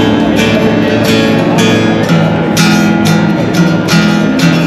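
Acoustic guitar strummed in steady chords, about two strums a second.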